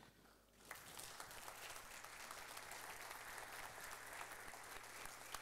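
Audience applauding, faint, starting after a brief hush less than a second in and going on steadily.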